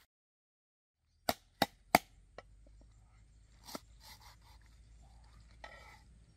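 Three sharp clicks in quick succession, about a third of a second apart, then two fainter ones and light crackling rustle, over a faint low hum.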